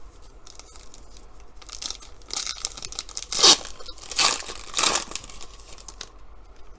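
A trading card pack wrapper being torn open and crinkled, with three loud, sharp rips in the middle.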